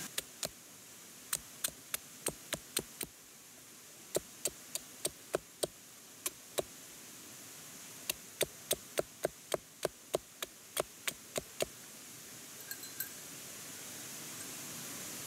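Repeated sharp knocks like hammer blows, in runs of several strikes at about three to four a second with short pauses between, stopping about twelve seconds in.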